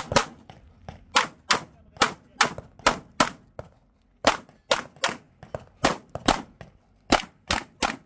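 Pistol shots from a Glock handgun fired in quick strings, mostly about half a second apart, with one short pause about three and a half seconds in before the firing picks up again.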